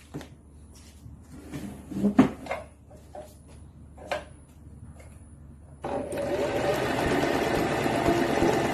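A few light clicks and knocks as the sewing machine is handled, then about six seconds in the machine starts running steadily and much louder, stitching after its threading was just put right.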